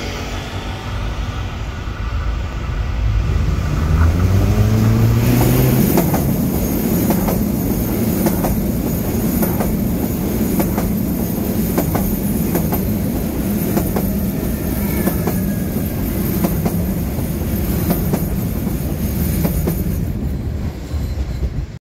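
A Rodalies electric commuter train passing close by: its motor tone rises as it draws near, then a steady rumble with repeated clacks of wheels over rail joints and a faint high whine as the carriages go past.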